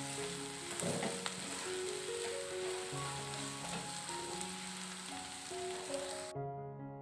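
Shallots, onion, red chillies and scrambled egg sizzling as they are stir-fried in a wok, with a silicone spatula knocking and scraping the pan. The sizzle cuts off suddenly near the end, leaving soft background music.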